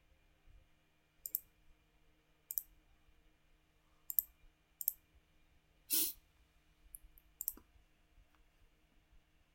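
Computer mouse buttons clicking, single and double sharp clicks every second or so as menu commands are picked. About six seconds in comes one brief louder rushing sound, over a faint steady hum.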